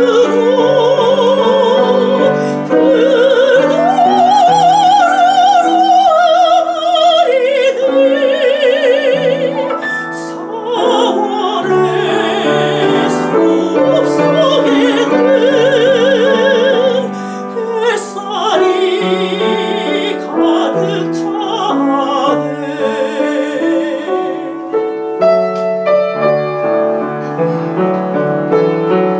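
Soprano singing a Korean art song in operatic style with wide vibrato, accompanied by piano. The voice stops near the end, leaving the piano playing alone.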